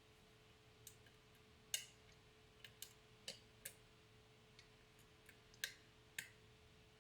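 Small, sharp clicks of a lock pick working the pins of a pin-tumbler challenge lock, about ten at irregular intervals, the loudest just under two seconds in, over a faint steady hum.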